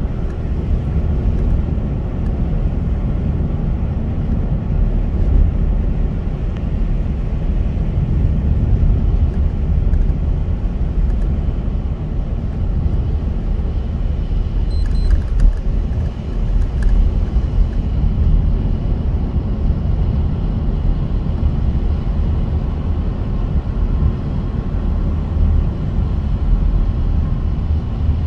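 Steady low rumble of a car heard from inside the cabin while driving on a rain-wet road: engine and tyre noise. About halfway through, a brief high beep and a few clicks.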